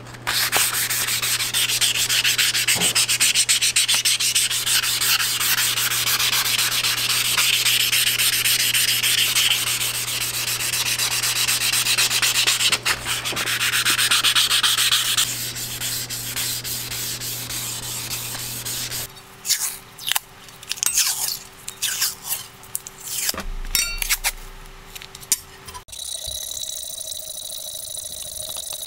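Sanding on a butcher's cleaver: scratchy, continuous rubbing over a steady motor hum, which stops about two-thirds of the way through. Scattered knocks and handling sounds follow, then a different steady sound with faint tones near the end.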